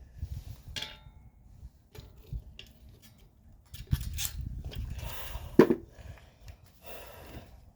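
Scattered metallic clinks and knocks of tools and parts being handled, with one louder clank about five and a half seconds in.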